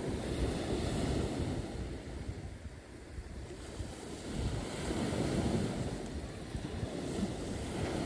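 Wind buffeting the microphone: a low rumbling noise that swells and eases in gusts.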